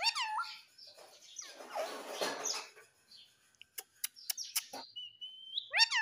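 Rose-ringed parakeet (Indian ringneck) calling: a loud squawk falling in pitch at the start and another just before the end, with a rough, noisy stretch, a few sharp clicks and a short high whistle in between.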